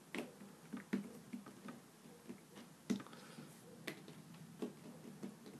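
Faint, irregular soft taps and clicks of fingers pressing and shaping play dough on a ceramic tile surface, with a couple of sharper clicks about three and four seconds in.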